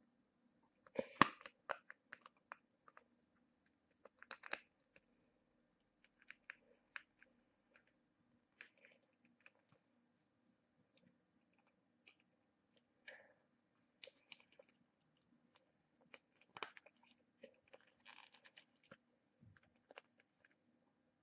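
Almost quiet: a faint low steady hum with scattered small clicks and crackles, the loudest about a second in.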